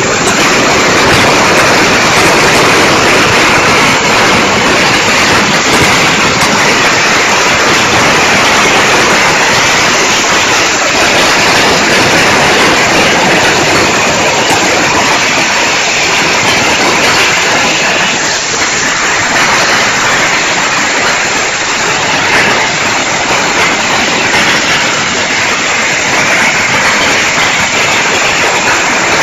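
Strings of Chinese firecrackers (bianpao) going off in a dense, unbroken crackle of rapid bangs.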